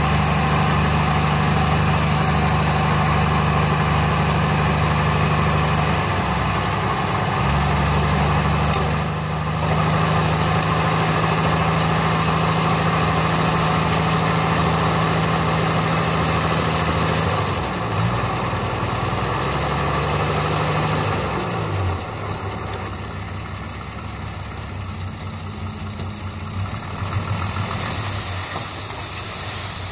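Six-wheel dump truck's diesel engine running steadily while the hydraulic hoist raises the loaded tipper bed. The engine note dips briefly a few times, then drops away about twenty-two seconds in, leaving a quieter running sound.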